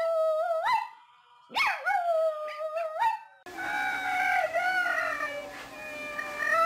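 A small dog howls twice, each long call sliding down and then holding, with a short upturn at the end; the first call ends just under a second in. After a sudden cut, a wet husky howls and yowls in a long, wavering voice over the steady hiss of a hose sprayer.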